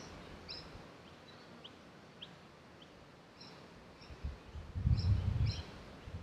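Small birds chirping, with short quick rising chirps repeated every half second or so over a faint outdoor background. About four and a half seconds in, a low rumble comes and goes and is the loudest sound.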